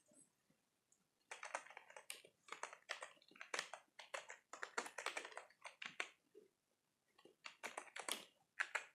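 Faint computer-keyboard typing: quick runs of key taps starting about a second in, a pause of about a second past the middle, then a shorter run near the end.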